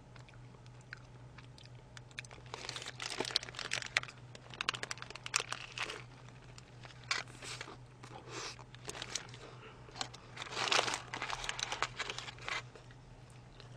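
Close-miked eating: crunchy bites and chewing of a fried chicken burger mixed with its paper wrapper crinkling, in irregular bursts starting about two seconds in and stopping near the end.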